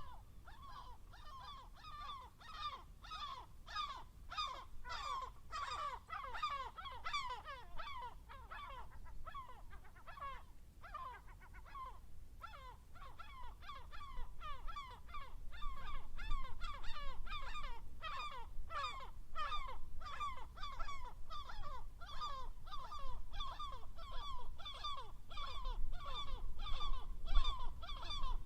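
A flock of gulls calling over and over, many short overlapping calls at once. A low rumble underneath grows louder in the second half.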